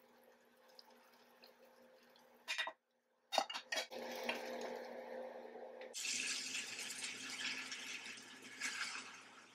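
Hot cooking water being poured off a skillet of instant ramen, held back by a glass lid, with a steady splashing hiss from about six seconds in. A few sharp knocks of a utensil or the lid against the pan come before it.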